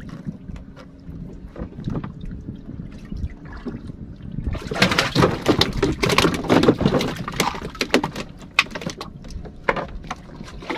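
Water splashing hard and irregularly for about three seconds in the middle, over a low wind rumble, as a big fish on a hand-hauled longline is brought up to the boat's side.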